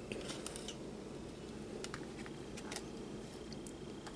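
Hands handling a small plastic tank and fitting a heating pad behind it: a few faint scattered clicks and taps, over a steady low hum.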